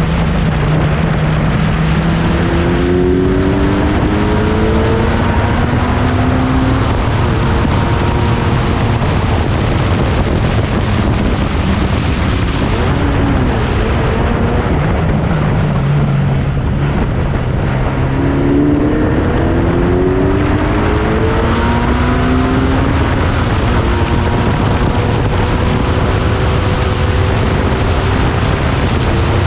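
1960s prototype racing car engines at racing speed, their revs climbing in rising sweeps through the gears in two bursts, under steady wind noise on the microphone.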